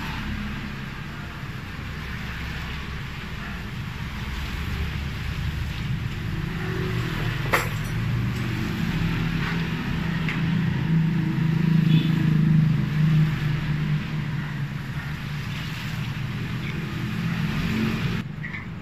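A motor vehicle engine running with a low hum, growing louder towards the middle and then easing off. A single sharp click sounds about seven and a half seconds in.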